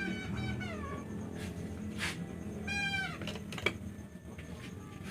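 A cat meowing, drawn-out calls that fall in pitch, one at the start and another near the middle, with a few sharp clicks.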